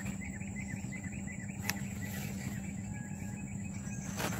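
Steady insect chirring with a fast run of short, high chirps in the first half, about five a second. A sharp click comes about a second and a half in, and a louder crack near the end.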